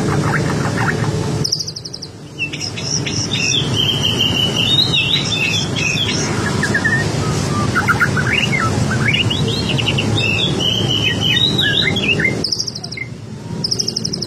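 A murai batu (white-rumped shama) singing a busy, chattering song of quick, varied whistles, trills and harsher chirps. It pauses briefly about two seconds in and again near the end.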